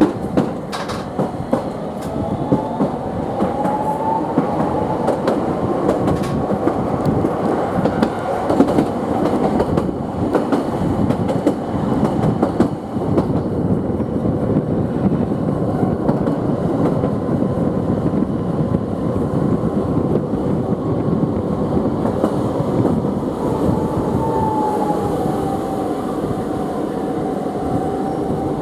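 Toden Arakawa Line streetcar running, heard from inside the car: a steady rumble of wheels on track with scattered rail clicks. A whining tone rises in pitch about four seconds in and falls over the last few seconds, as the tram pulls away and then slows.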